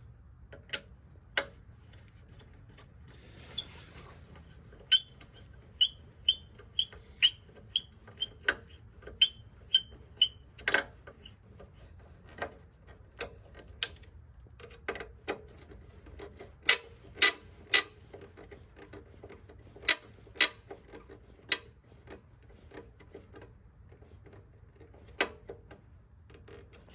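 Irregular sharp clicks and taps of a hand screwdriver and small parts as a replacement electric-start push button is screwed into a snowblower's housing, some clicks with a short metallic ping.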